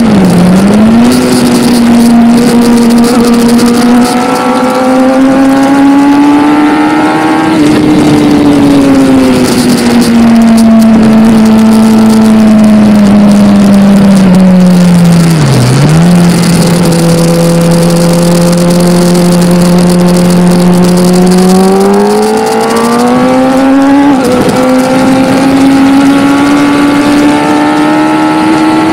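Kawasaki ZX-10R's inline-four engine heard on board while riding, its pitch rising and falling with the throttle. The note drops sharply twice, just after the start and about halfway through, holds low for several seconds, then climbs again.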